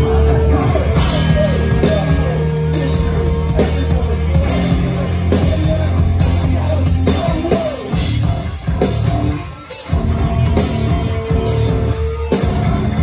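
Live hardcore punk band playing loud: heavy bass and drums, with cymbal crashes on a steady beat from about a second in. The band drops out briefly about three-quarters of the way through, then crashes back in.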